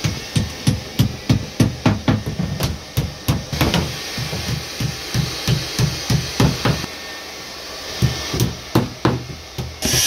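Hammer driving thin nails into the wooden board panels of a dressing table. A fast run of blows comes about three a second, then lighter taps, a short pause, and more blows near the end.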